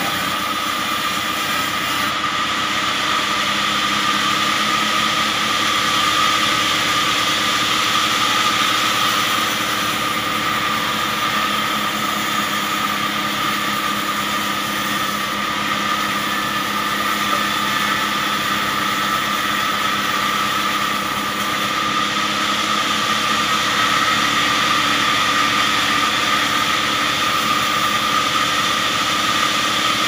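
Band sawmill running steadily while a curved log is fed through the blade and sawn into a slab: an even mechanical din with a steady high hum.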